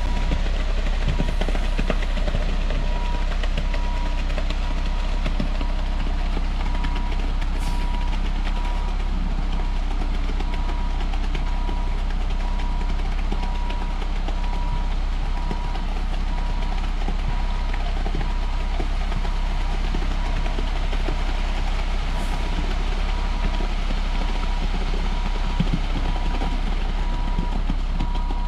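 Concrete mixer truck running steadily during a pour, its engine giving a constant low rumble. Its back-up alarm beeps at an even pace from about three seconds in.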